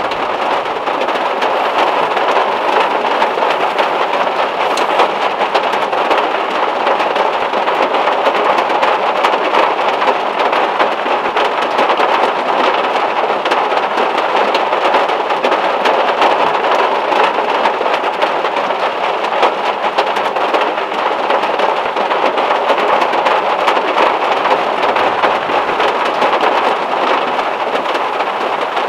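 Heavy rain falling steadily, a dense patter of drops on a car's metal roof.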